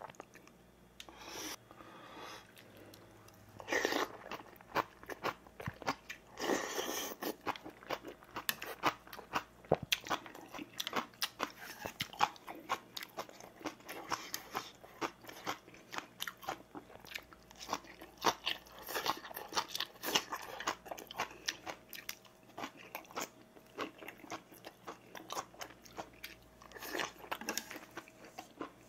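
A man chewing and crunching mouthfuls of rice and seasoned vegetable side dishes: a dense run of wet smacks and crunches, with louder stretches about four and seven seconds in.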